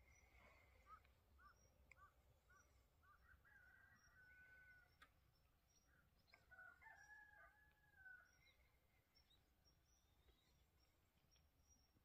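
Near silence with faint distant bird calls: a run of short chirps, about two a second, in the first few seconds, then a longer drawn-out call about six and a half seconds in.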